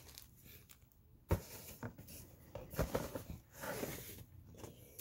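Cardboard box and packaging being handled: scattered rustling and scraping, with one sharp knock a little over a second in.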